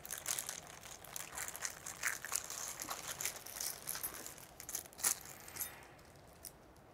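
Clear plastic packaging bags crinkling as they are handled, with a small bag of screws drawn out of a larger bag. Irregular crackles that thin out and fade near the end.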